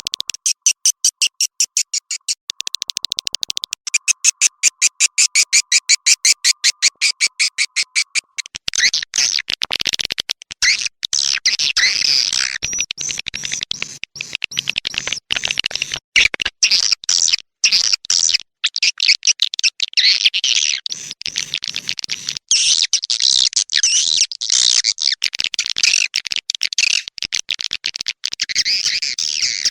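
Swiftlet call recording used as a lure to draw wild swiftlets to nest in a swiftlet house: a fast, even train of high chirps, about seven or eight a second, over a faint steady tone, changing after about eight seconds into dense, irregular twittering chatter.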